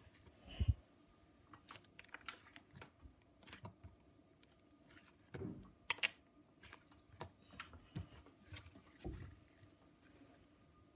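Faint, irregular clicks and soft squishing of slime being handled and stretched in the hands, with a few soft knocks, the clearest about half a second in and again around six and nine seconds.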